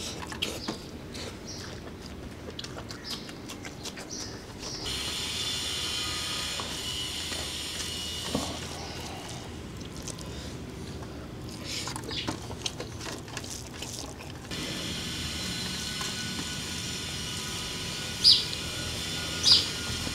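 Eating by hand: fingers mixing rice and chicken curry on a steel plate, with chewing and scattered soft clicks. Three short high chirps near the end.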